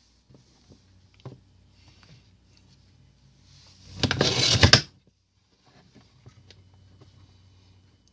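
An 18650 lithium-ion cell pushed into a spring-loaded bay of a plastic four-bay battery charger: one brief scraping clatter about four seconds in, with a few light taps before it.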